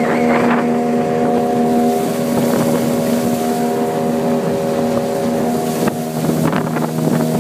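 Outboard motor of a small open boat running steadily at cruising speed, with water rushing past the hull and wind buffeting the microphone.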